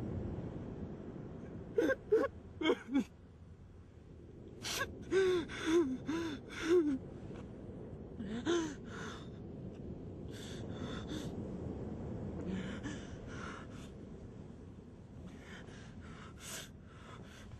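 A man gasping and sobbing: short, sharp, breathy intakes with brief voiced whimpers in several quick clusters, then softer ragged breaths that fade toward the end.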